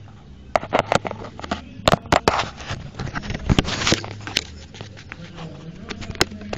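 Phone handling noise: a quick run of sharp knocks and scrapes as fingers fumble over the phone and its microphone, thickest in the first four seconds and then thinning to a few clicks.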